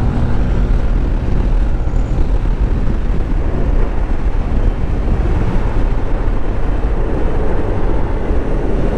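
Motorcycle riding at speed through a bend: steady wind rushing over the microphone, with the engine running underneath.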